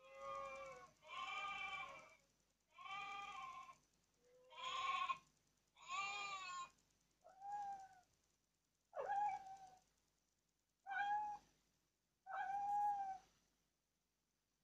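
A children's sound board book playing recorded baby animal calls through its small speaker when its buttons are pressed. First come five lamb bleats, each about a second long. Then, from about seven seconds in, come four kitten meows.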